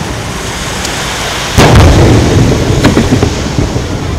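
Aerial fireworks shells bursting: a loud boom about one and a half seconds in, trailing off into a long low rumble, with single sharp cracks shortly before and after it.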